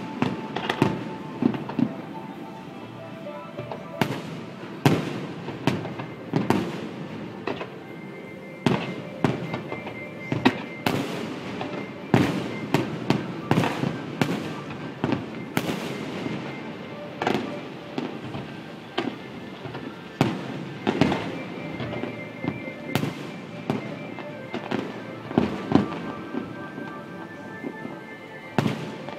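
Aerial firework shells bursting during a fireworks display: a long, irregular series of sharp bangs, some coming in quick clusters, with echoing tails. Music plays steadily underneath.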